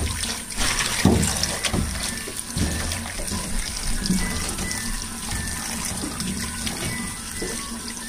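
Kitchen tap running into a pot of halved potatoes in a steel sink, water splashing as hands rub and rinse them. A few soft knocks of handling come in the first few seconds.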